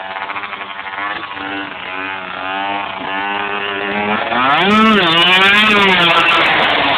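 A small engine running, pulsing at first, then revving up and back down about five seconds in, where it is loudest.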